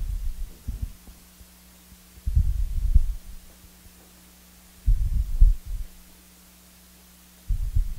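Dull low thumps and rumbles, three times about two and a half seconds apart, as a steel workpiece is shifted by hand in a milling-machine vise to square it against an angle gauge. A faint steady hum runs underneath.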